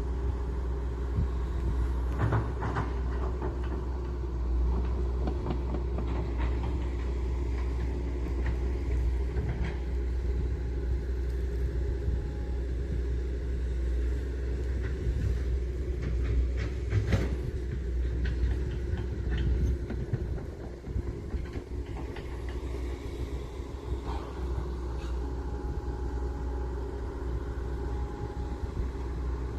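Hydraulic excavator at work: its diesel engine runs steadily with a low rumble, with scattered metallic clanks and knocks from the machine.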